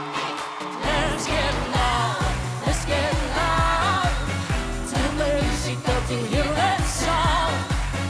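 Upbeat Latin-flavoured pop dance track: a heavy, steady beat kicks in about a second in, with a singing voice over it.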